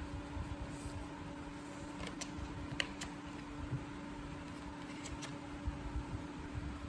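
Wax crayons scratching on a colouring page and the paper sheet being shifted on a table, with a few light ticks. A steady low hum sits underneath.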